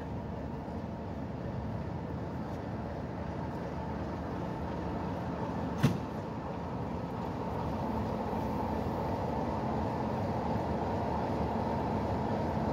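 Class 33 diesel locomotive's Sulzer engine running as the locomotive creeps in at walking pace, growing gradually louder as it approaches. A single sharp knock comes about six seconds in.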